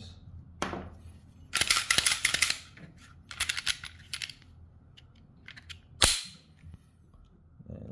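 Canik Mete MC9 pistol being handled: a click, a quick run of rattling clicks about two seconds in, a few smaller clicks, then one sharp snap about six seconds in.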